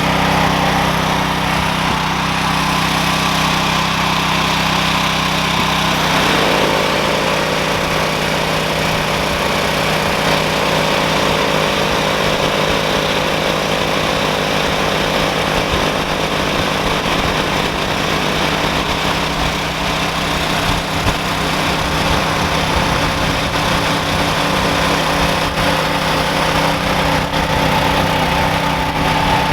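Ryobi 6500-watt portable generator running steadily. About six seconds in, a 5-gallon pancake air compressor plugged into it starts and keeps running, putting a load on the generator.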